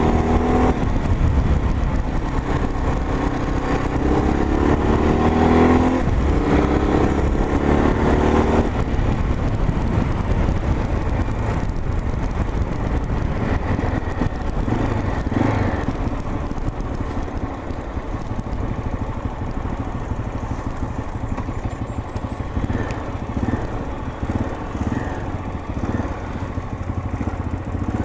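Motorcycle engine running under way, heard from on the bike: the engine note rises several times in the first eight seconds or so as the bike accelerates through the gears, then settles into steadier cruising with road and wind noise.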